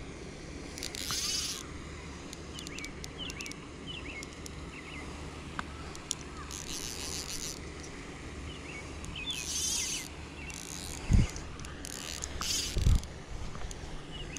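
Night insects calling in repeated high buzzing bursts every second or few, with faint chirps in between, over a steady low background. Two short dull thumps near the end, about a second and a half apart, are the loudest sounds.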